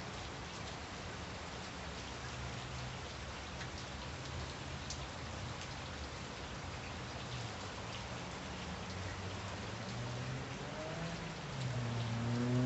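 Steady rain falling on wet pavement, puddles and grass, with scattered sharp drop taps. A low pitched drone runs underneath and rises in pitch and grows louder near the end.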